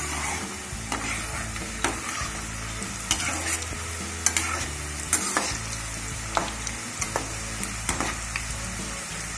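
Shakarpara pieces of maida dough deep-frying in hot oil in a kadhai, the oil sizzling steadily. A perforated slotted spoon gently stirs them, knocking and scraping against the pan about once a second.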